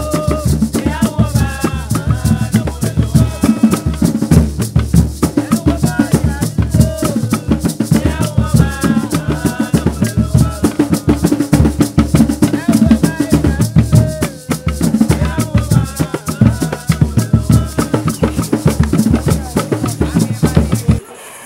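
Background music with a fast, busy percussion beat under a melody; it cuts off abruptly shortly before the end.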